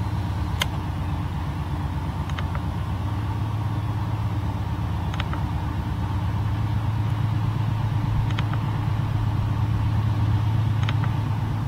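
CSX GE diesel freight locomotives working under load at low speed, their engines giving a steady low drone that slowly grows louder; the black exhaust smoke shows the engines throttled up. Sharp double clicks come every two to three seconds.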